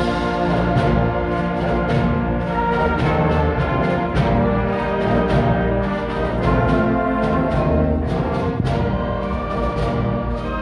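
Middle school concert band playing: saxophones, tubas and brass holding chords over a steady beat.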